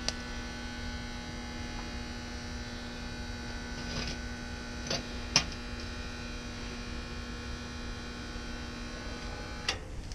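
Steady electrical mains hum with a buzzy, many-toned edge, broken by a few light clicks and taps; its low tone drops out shortly before the end.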